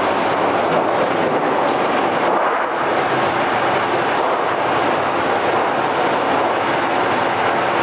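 Homemade roll-forming machine for corrugated sheet running, with a steady metallic rattle throughout.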